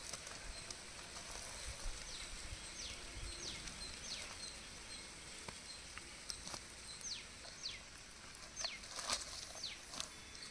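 Feathers being plucked by hand from a wet duck, with small irregular clicks and rustles as each pull comes away. A few short falling bird chirps sound in the background.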